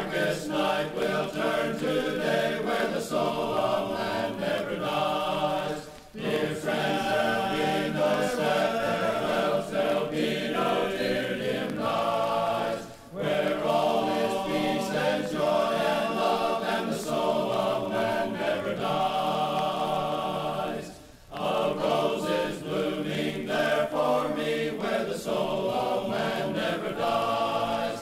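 Men's chorus singing a hymn a cappella in close harmony. Three short pauses for breath split the singing into long phrases.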